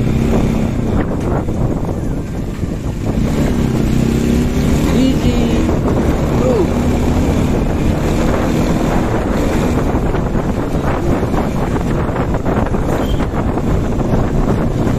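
Wind buffeting the microphone on a moving motorcycle, over the low, steady drone of the engine and road; a few pitched tones come and go in the middle.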